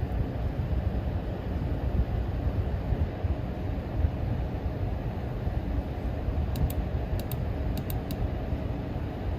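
EVGA RTX 3060 Ti FTW3 Ultra's triple-fan cooler running at high speed, around 70%, a steady rush of moving air with the PC's case fans under it. A quick run of faint clicks comes about two-thirds of the way through.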